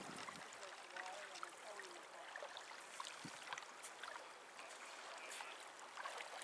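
Faint lapping and trickling of shallow lake water at a sandy shore, with small scattered splashes from feet wading in it.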